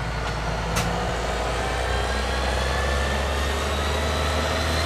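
A Claas Jaguar self-propelled forage harvester (corn chopper) driving past with its diesel engine running. A steady low engine hum sits under a high whine that rises slowly in pitch, and the sound grows a little louder as the machine comes closer.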